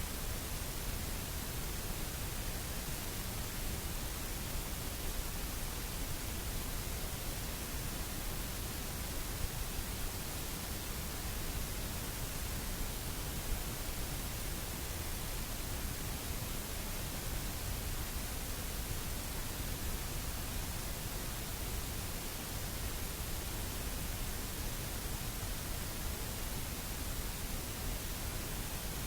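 Steady static-like hiss with no other sound, broken only by two faint ticks.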